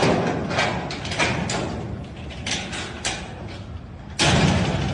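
Sliding bolt latch on a corrugated sheet-metal shed door worked by hand: a series of metal clicks and knocks, then a louder metal rattle lasting under a second about four seconds in.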